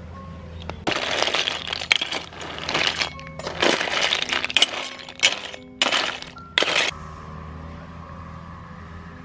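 Cooked snail shells clattering and scraping in a metal wok as they are stirred and scooped with a spatula, in quick irregular bursts that stop about seven seconds in. Soft background music plays throughout.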